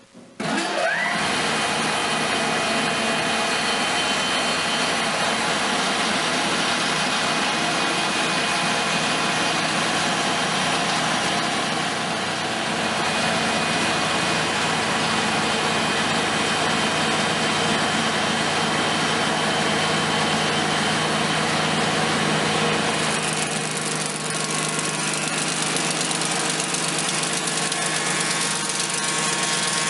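Altai ChN280 log notching machine switching on with a short rising whine as it spins up, then running steadily with a loud mechanical hum. Its tone changes about 23 seconds in.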